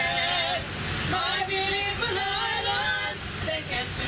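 Women singing into a handheld microphone, with long held, wavering notes, over the steady low rumble of the moving train car.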